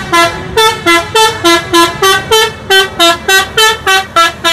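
Tour bus's multi-tone musical air horn (the Indonesian 'telolet' horn) playing a quick tune of short notes, about four a second, hopping between a few pitches, over the low rumble of the bus.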